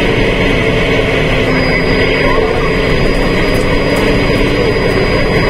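Old Scania truck's diesel engine running steadily as the truck rolls slowly along, heard from inside the cab as a loud, even drone.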